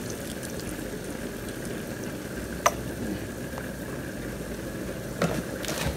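Pan of water at a rolling boil, bubbling steadily. There is one sharp click near the middle and a couple of knocks near the end.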